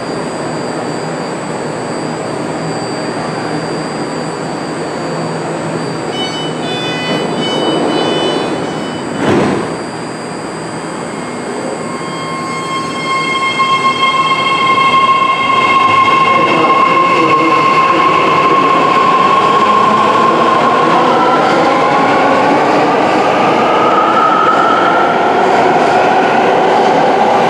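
BART Bombardier train at a station platform: a run of short high door-closing beeps, then a single knock as the doors shut. A steady electric whine from the traction motors starts up as the train pulls away and climbs in pitch as it gathers speed.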